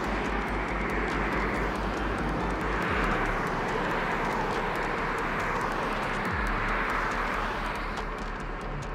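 Highway traffic on a bridge: the steady tyre and engine noise of passing cars, swelling and easing as each one goes by.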